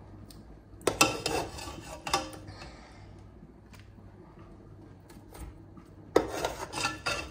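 A cooking utensil scraping and clattering against a pot in two short bouts, one about a second in and one near the end, over a low steady hum.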